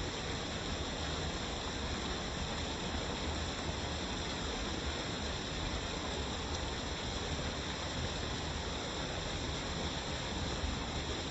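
Waterfall: falling water rushing in a steady, even roar of noise that does not change.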